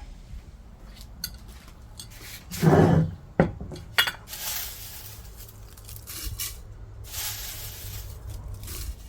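Dishes and utensils being handled, with clinks and knocks. A heavier thud comes about three seconds in, and two short stretches of hiss-like noise follow.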